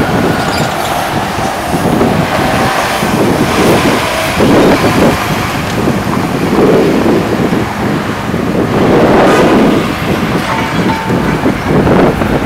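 Demolition excavator running and working its arm at a building, a dense rumbling noise with several louder surges about four and a half, six and a half and nine seconds in.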